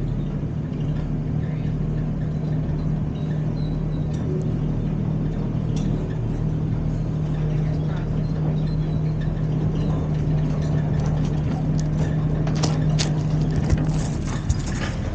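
Mini excavator engine running at a steady speed, with a few clicks and knocks near the end.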